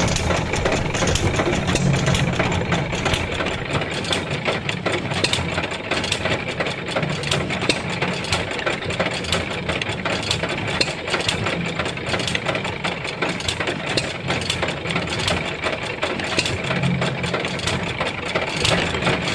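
A 3/4 HP Bluffton hit-and-miss stationary engine running under light load, driving an antique wooden washing machine. Dense, rapid mechanical clicking and clatter from the drive and washer gearing runs throughout, and a lower engine rumble swells and fades every several seconds.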